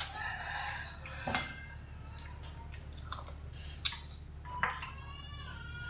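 A person eating with the fingers: chewing and mouth sounds, with a few sharp clicks of a metal spoon and chopsticks against a stainless steel tray, over a steady low hum. Near the end a drawn-out whining tone lasting about two seconds.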